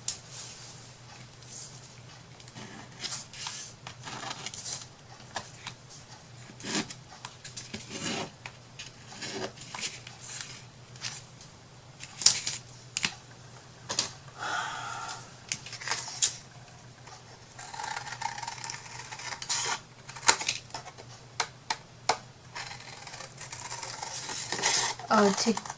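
Scattered light clicks, taps and rustles of paper and small wooden craft pieces being handled on a tabletop, with a couple of longer rubbing stretches, over a steady low hum.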